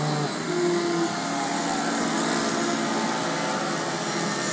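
Many radio-controlled 3D profile model planes hovering together: their motors and propellers drone steadily as one overlapping chorus of several pitches, each drifting a little as the throttles change.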